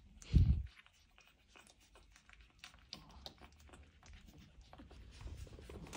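A dull thump about half a second in. After it comes a steady run of small wet clicks and smacks from a litter of Cavalier King Charles spaniel puppies suckling at their mother.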